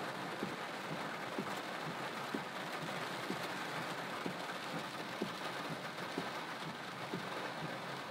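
Rain falling on a car, heard from inside the cabin: a steady hiss with scattered, irregular taps of drops hitting the roof and windshield.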